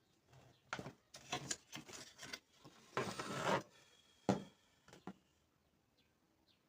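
Hand work on a car door speaker during a glue repair: a run of short rubbing and scraping strokes, a longer scrape about three seconds in, then two sharp knocks.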